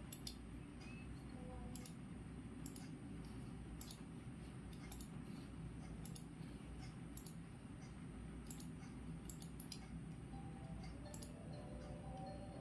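Sparse, light, sharp clicks at uneven spacing, roughly one a second, over a steady low background rumble.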